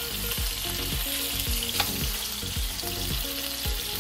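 Lamb rib chops searing in hot olive oil in a frying pan: a steady sizzle.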